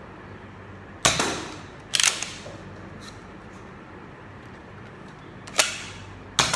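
Nerf Accustrike Falconfire dart blaster being primed and fired: four sharp plastic clacks, in two pairs about a second apart, the first pair about a second in and the second near the end.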